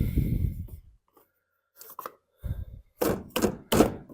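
A new air filter and its plastic housing cover being fitted on a Briggs & Stratton 725 EXI lawn mower engine: rustling handling in the first second, then several sharp plastic knocks and clacks near the end as the cover is pressed into place.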